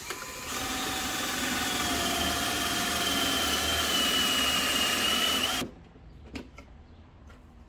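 Ryobi cordless drill boring a pocket hole into a pine board through a pocket-hole jig: a steady motor whine over cutting noise for about five and a half seconds, then it cuts off suddenly. A single knock follows shortly after.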